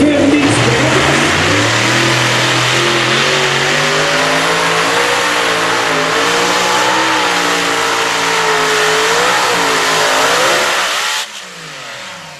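Multi-engine modified pulling tractor with several supercharged engines running flat out under load. The pitch climbs over the first couple of seconds, holds with small wavers, and rises again near the end. About eleven seconds in the engines are shut off, and the sound drops sharply as their pitch falls away.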